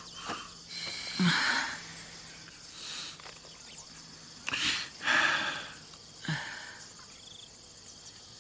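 A person breathing heavily, with several separate rasping breaths, while recovering from breathing in exhaust fumes.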